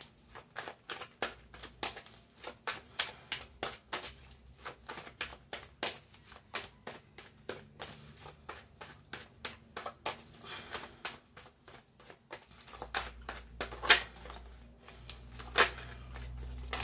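Tarot deck being shuffled by hand: a quick run of card clicks and flicks, several a second, with a few louder slaps near the end.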